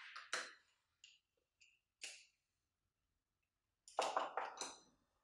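Woodworking clamps being handled and tightened on a glued-up assembly: a few short clicks and knocks, then a louder cluster of quick clicks and rattles about four seconds in.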